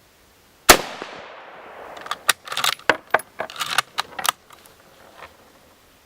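A single shot from a Mosin-Nagant bolt-action rifle in 7.62×54R about a second in, ringing off, then a quick run of sharp metallic clacks as the bolt is worked to eject the spent case and chamber the next round.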